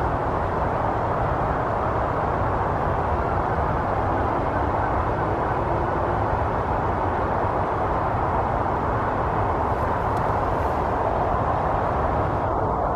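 Steady, even rumbling background noise with no distinct calls, knocks or other events.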